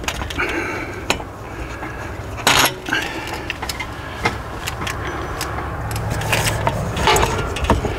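Scattered metallic clicks, knocks and rattles from hand tools and awning hardware as the old roller tube of an LCI motorized RV awning is worked loose from its end brackets, over a steady low hum.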